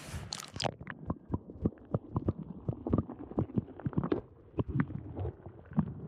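A short splash as the camera breaks the surface, then muffled underwater sound: a dense run of irregular knocks and clicks with a low rumble, from the submerged camera and its housing being moved about in the water.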